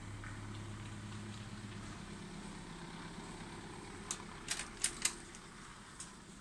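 A car engine running with a low, steady hum that fades away over the first few seconds. A quick run of sharp clicks follows about four seconds in.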